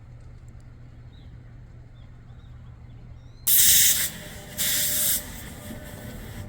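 Two loud, short bursts of hissing, about half a second each and a second apart, over a low steady hum with a few faint bird chirps.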